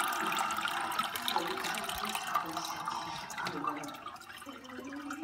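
Aquarium water bubbling and splashing, a steady crackle of small pops that grows quieter about four seconds in.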